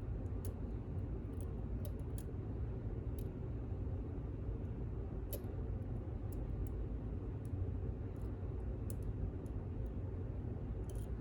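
Faint, scattered clicks of a lock pick working the pins inside a pin-in-pin lock cylinder, over a steady low hum.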